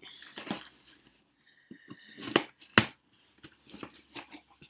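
A cardboard parcel being opened with scissors: snipping and scraping at the tape and packaging, with two sharp clicks a little past halfway, the second the loudest.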